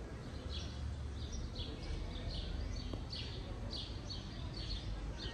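Small birds chirping repeatedly, about two short high chirps a second, over a steady low background rumble.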